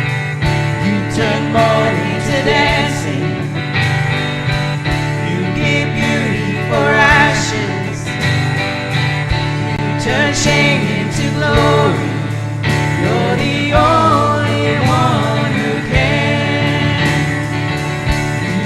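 Live worship band playing a contemporary worship song between sung lines: guitar over a sustained low chordal bed, with a wavering lead melody and some singing.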